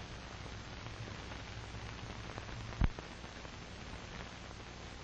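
Steady hiss and low hum of an old film soundtrack, with a single sharp pop a little before three seconds in.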